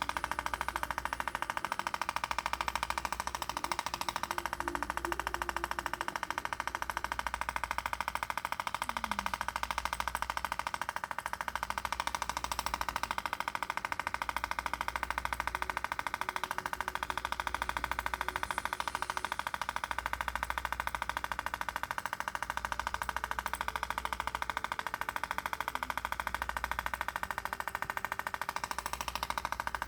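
Scalp micropigmentation tattoo machine buzzing steadily as the needle works, with a low throb coming and going every couple of seconds.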